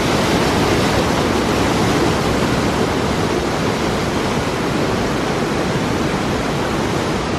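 High waterfall pouring below: a loud, steady rush of falling water.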